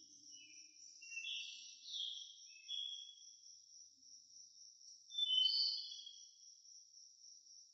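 Faint nature ambience: insects trilling steadily at a high pitch, with a bird calling in short, high chirps over it. A cluster of calls comes between one and three seconds in, and the loudest comes about five seconds in.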